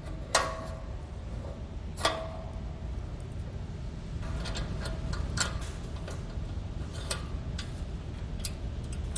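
Small metal clicks and clinks from handling an aluminium platform leg extension and its pull pin and lanyard. Two sharp clinks with a brief ring come in the first two seconds, then lighter scattered clicks, over a low steady hum.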